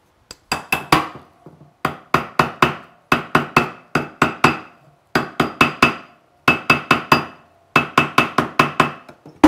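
Mallet tapping a freshly soldered 14-karat gold wedding band round on a metal ring mandrel: about six quick runs of four to six light taps, each with a short metallic ring, with brief pauses between runs.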